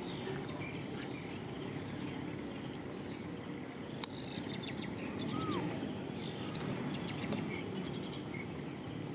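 Outdoor ambience: a steady hiss of background noise with faint insect sounds and a few short bird chirps, and one sharp click about four seconds in.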